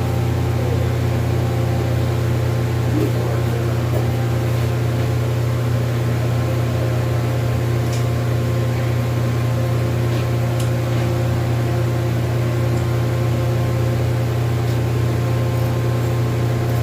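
Stick welder's transformer humming steadily: a low mains-pitched drone with a faint hiss and a few light clicks.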